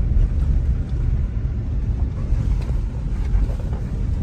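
Car driving, heard from inside the cabin: a steady low rumble of tyres and engine, with a few faint knocks.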